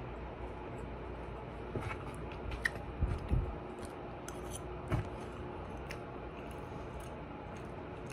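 Close-up chewing and mouth noises: scattered small wet clicks and smacks, with a few louder soft knocks about three seconds in and again near the middle.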